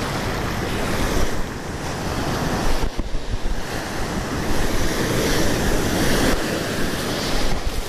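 Ocean surf washing in and out over the shallows, with wind blowing on the microphone as a steady rushing noise that swells and eases a little.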